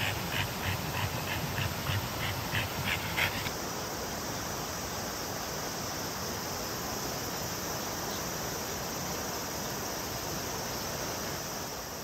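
A French bulldog panting fast, about three breaths a second, stopping about three and a half seconds in. Under it runs the steady rush of a mountain stream with a high, even insect drone.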